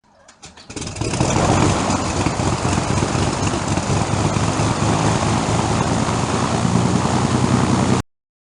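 Propeller aircraft piston engine starting: a few separate cranking beats that catch within the first second, then the engine running steadily until it cuts off abruptly near the end.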